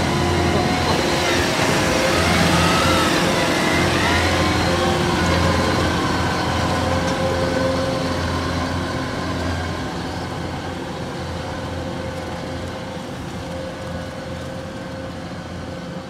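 Kubota DC105X rice combine harvester running, its diesel engine and threshing machinery making a steady drone that grows fainter in the second half as the machine moves away.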